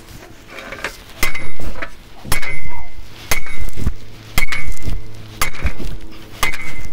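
Heavy blows of metal on metal, six strikes about one a second, each a dull thud with a ringing clang, as a metal rack post is pounded into the ground.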